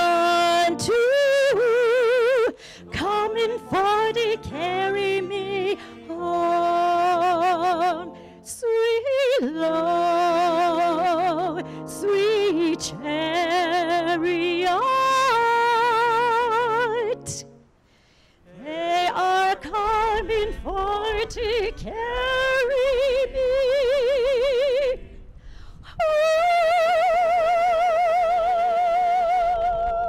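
A woman singing in an operatic style with wide vibrato and scooped note attacks, over a band's accompaniment. There is a brief break just past the middle, and near the end she holds one long note.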